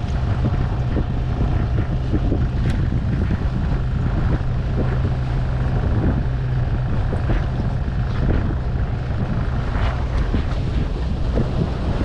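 Strong sea wind buffeting the microphone, a steady rumble and hiss, with a couple of small handling clicks.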